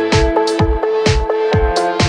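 Electronic background music with a steady kick-drum beat, about two beats a second, with sharp high percussion hits over held synth notes.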